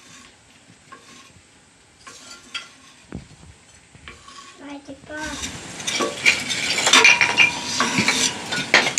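Kitchen clatter of wood and metal being handled: a few soft knocks at first, then from about five seconds in a louder, busier run of clattering and clinks with a brief metallic ring.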